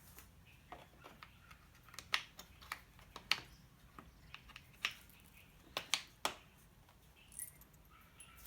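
Scattered sharp clicks and clinks of small hardware being handled during a mount installation, most of them bunched between about two and six and a half seconds in.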